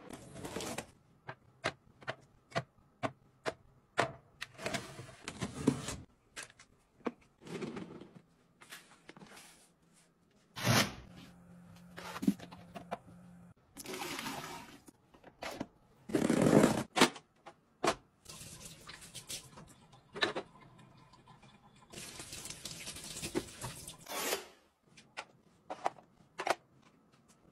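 A run of sharp clicks and knocks from kitchen utensils and plastic organisers being handled and set in place. About midway there is a longer, noisier stretch as liquid is poured into a plastic strainer bin.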